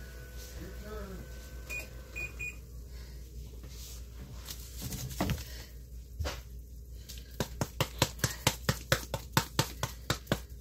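A kitchen appliance beeper sounds three short high beeps about two seconds in. Near the end, a quick, even run of sharp clicks or taps, about six a second for roughly two and a half seconds, is the loudest sound.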